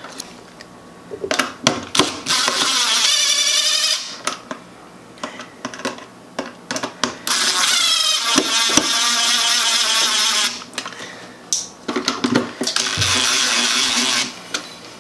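Electrical tape being pulled off its roll in three long rasping pulls, the middle one longest, with small handling clicks between, as it is wrapped around a wall switch to cover its screw terminals.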